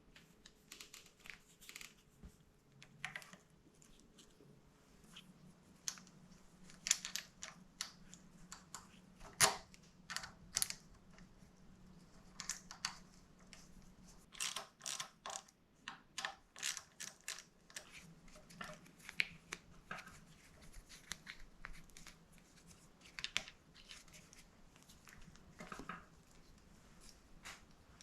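Irregular small clicks, taps and rustles of hand work on motorcycle parts and tools.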